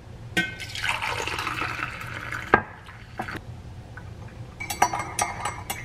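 Coffee poured from a stainless-steel thermal carafe into a ceramic mug: a steady splashing pour that stops about two and a half seconds in with a sharp knock. A few light clicks and taps follow near the end.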